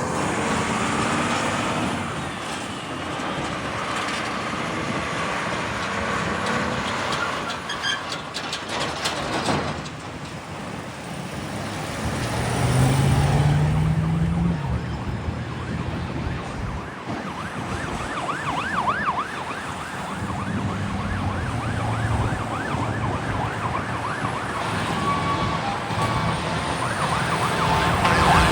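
A fire engine under way: its diesel engine rises in pitch as it accelerates about halfway through, and from about two-thirds of the way in its siren sounds in a fast, warbling yelp.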